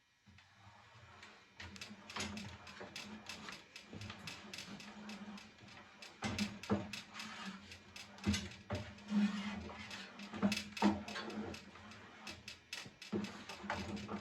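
Irregular rubbing and scraping with many short clicks and knocks, like hands working over a table saw's cast-iron top, over a low steady hum.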